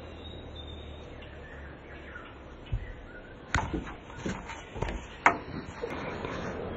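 A string of sharp knocks and rubbing noises as a cat bumps and brushes against the camera, the loudest a little past the middle, after a low steady hum at the start.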